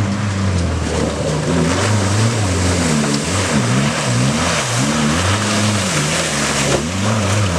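Off-road vehicle's engine working hard over rough ground, its revs rising and falling again and again, with a steady hiss over it.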